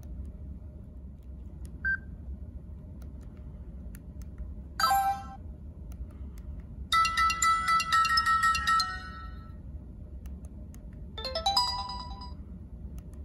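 Sony Ericsson Spiro mobile phone playing short ringtone snippets through its small speaker, one after another with gaps between: a brief blip, a half-second jingle, a melody of about two and a half seconds, then another jingle of about a second. A steady low hum runs underneath.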